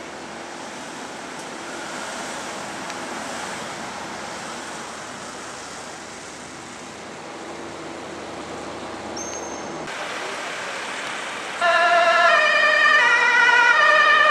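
Road and engine noise from an ambulance driving off. About two-thirds of the way in, a Dutch ambulance siren starts suddenly and loudly, wavering up and down in pitch.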